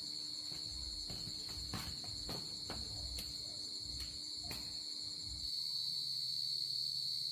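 Insect chorus at dusk, a steady high-pitched drone, with a few light knocks in the middle.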